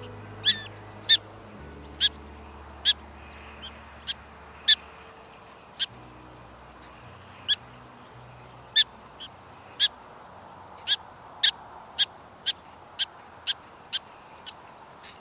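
Prairie dog alarm barks: a long series of short, sharp, high chirps, spaced unevenly at first and then quickening to about two a second in the second half, warning the colony of danger.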